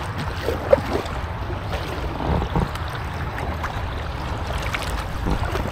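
Kayak paddles dipping into calm water, with splashing and dripping from the blades over a steady low rumble. There is one short, louder knock just under a second in.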